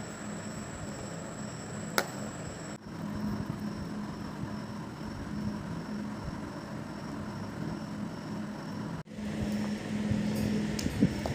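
Steady background hum and noise with a low pulsing drone, broken by one sharp click about two seconds in and by brief dropouts where the sound cuts.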